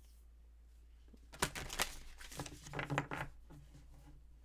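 A deck of tarot cards being shuffled by hand: a quick run of soft card rustles and clicks starting about a second and a half in and lasting about two seconds.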